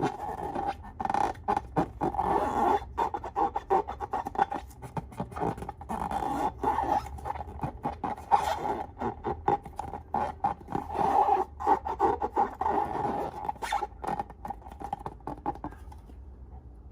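Slime being worked by hand, a continuous run of small sticky clicks and crackles that stops shortly before the end.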